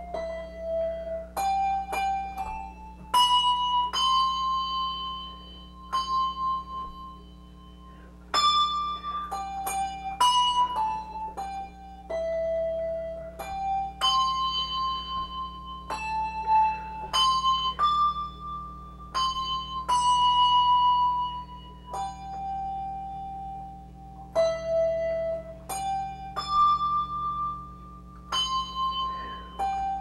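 English handbells ringing a slow tune, one bell at a time, each note struck sharply and left to ring on as the next one sounds.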